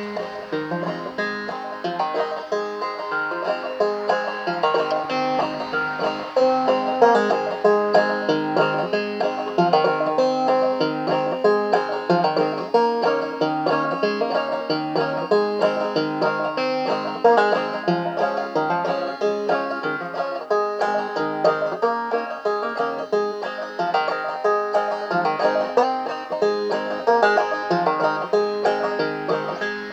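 Five-string banjo played clawhammer style: a steady, rhythmic stream of plucked and brushed notes with ringing strings, a folk tune.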